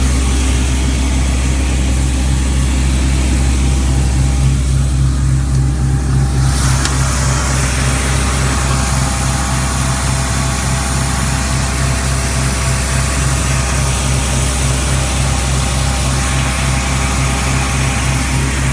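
Atlas Copco XAHS426 Cd diesel-driven portable screw air compressor running steadily: a low, even engine drone with a fast pulsing throb. A brighter hiss comes up about six seconds in and holds.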